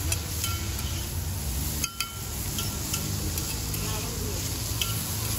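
Food sizzling on a street-stall dosa griddle, with scattered short clicks from utensils working it and a steady low rumble underneath.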